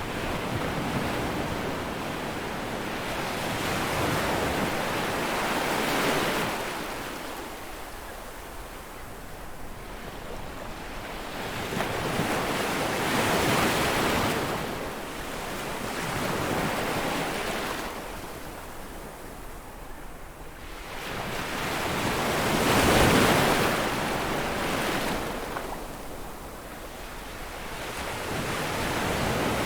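Sea waves breaking and washing back, swelling and falling away in slow surges several seconds apart; the biggest wave breaks about three-quarters of the way through.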